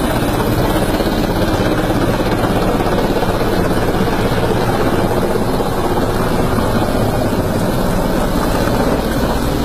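Helicopter flying low close by, its rotor beating loudly and steadily.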